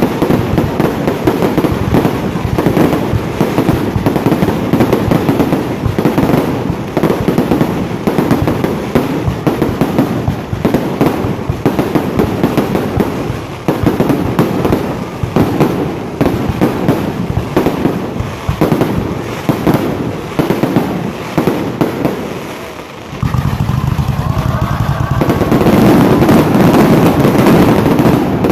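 Fireworks going off in rapid succession: a dense, continuous run of sharp bangs and crackles. About 23 seconds in, a heavier, steadier low rumble sets in and grows louder near the end.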